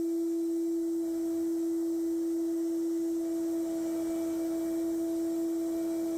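A steady, pure tone held at one pitch without a break, with a faint hiss beneath it.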